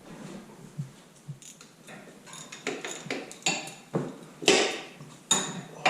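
Metal hand tools clicking and clinking, a socket and ratchet being worked onto the CV axle's inner retainer nuts. The clicks are irregular and sparse at first, then come louder and closer together in the second half.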